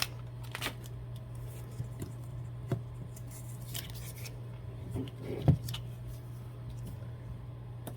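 Small handling sounds of vinyl-label crafting with transfer tape and hand tools: scattered light clicks and taps, with one sharper knock about five and a half seconds in, over a steady low hum.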